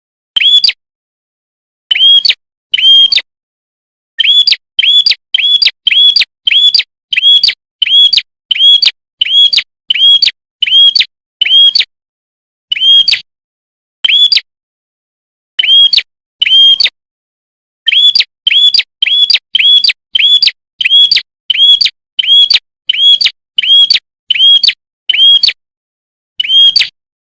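Prenjak (red-headed prenjak) calling: one loud, sharp chip note repeated over and over, about one to two a second in runs broken by short pauses, with dead silence between notes.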